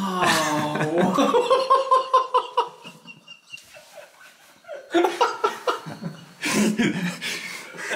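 Hearty human laughter, coming in rapid pulses, in two bouts with a short lull about halfway through.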